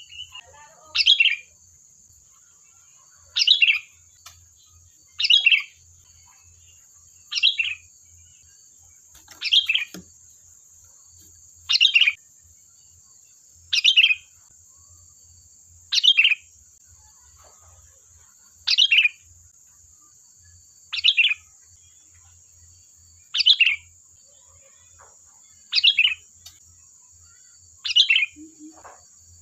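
Sooty-headed bulbul (kutilang) giving a short, loud, falling call over and over, about every two seconds, with a faint steady high hiss behind it.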